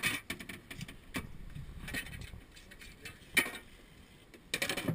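A fibreglass deck hatch lid being lifted, then metal poles clattering and knocking against each other in the boat's storage compartment as they are rummaged through, with a sharp knock about three seconds in and a flurry of rattles near the end.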